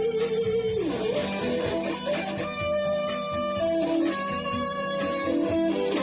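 Background music led by an electric guitar playing held notes, one of them sliding down in pitch about a second in.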